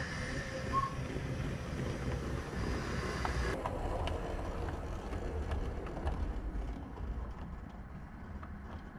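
A 7mm-scale model tank locomotive and its coaches running into the station. A steady low rumble of the motor and wheels on the track, with light clicking over the rail joints.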